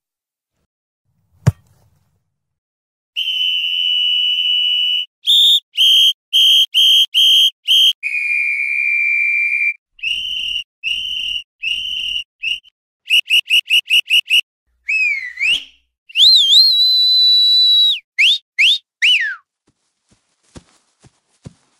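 Referee's whistle blown in a long, varied series of blasts: long steady blasts alternating with runs of short rapid toots, then a few blasts that bend and fall in pitch near the end.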